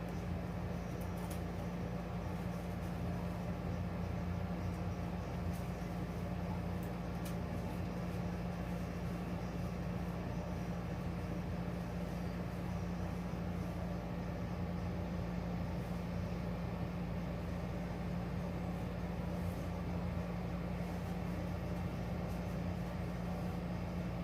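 Steady low hum with one constant tone and an even hiss beneath it, unchanging throughout, with a few faint clicks.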